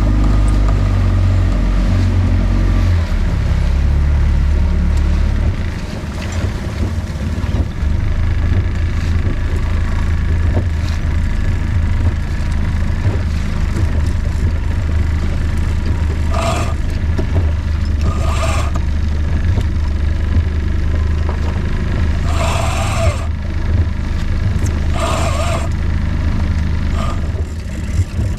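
Fishing boat's engine running steadily at trolling speed, its note dropping a few seconds in. Several short bursts of noise come in the second half.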